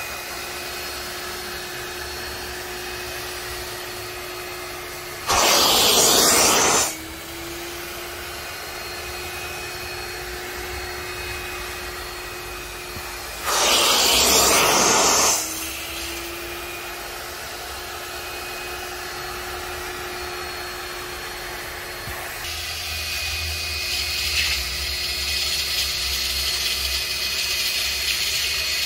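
Upholstery extraction vacuum running with a steady hum as its clear plastic upholstery tool is drawn over a fabric car seat. Twice there is a loud rushing of air through the tool for a second or two, and each time the motor's tone dips briefly and then recovers. Near the end the sound turns brighter and a little louder.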